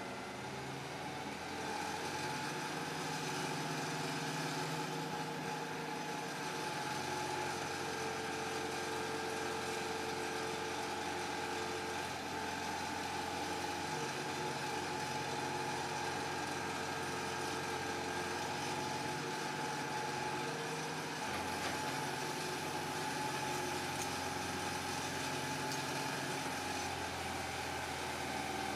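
Diesel engine of a flight-line crane running steadily. Its pitch shifts slightly a few times as its speed changes while it lifts a load.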